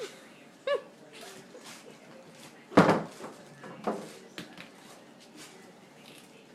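A baby's short high squeal about a second in, then a loud thump near the middle, followed by a brief second vocal sound and light knocks and rustles of groceries being handled.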